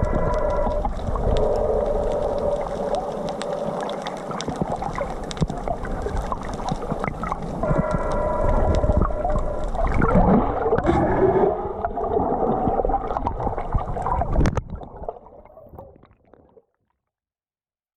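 Bow thruster running in the water: a steady motor whine over churning water. It stops about 15 seconds in and the water sound fades out.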